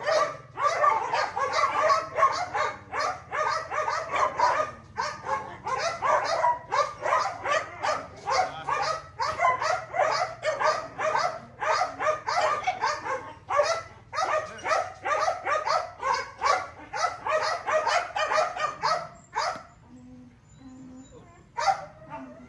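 Young puppy barking and yipping in quick succession, about two to three short calls a second, worked up with excitement over the ball; the calls stop abruptly a few seconds before the end, with one more near the end.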